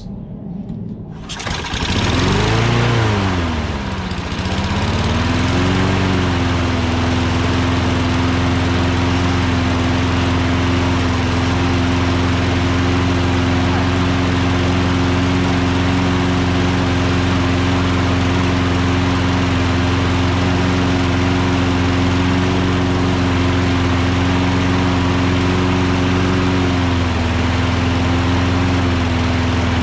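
Briggs & Stratton Quantum single-cylinder engine on a Toro Recycler 22-inch mower catching on a pull about a second in, on its first start after a carburetor cleaning and a new throttle plate and shaft. Its speed swings up and down for a few seconds, then it settles into a steady run, dipping briefly near the end.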